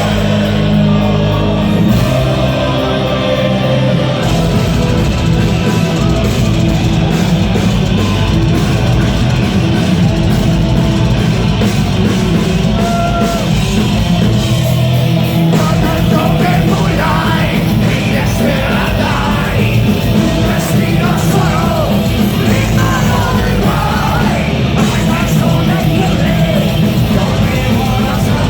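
A symphonic power metal band playing live and loud in a large hall, with singing and yelling over dense guitars, drums and keyboards, recorded from the audience.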